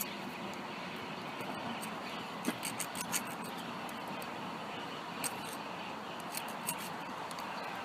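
Hand file scraping across the top of a broken stud, with a few light metallic clicks.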